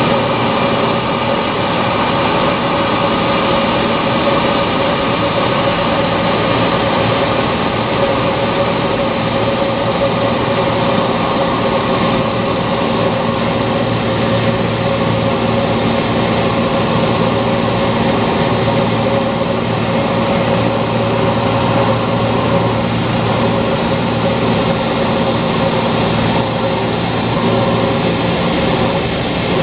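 Single-engine propeller light aircraft's piston engine and propeller running steadily in flight, heard from inside the cockpit, with no change in pitch.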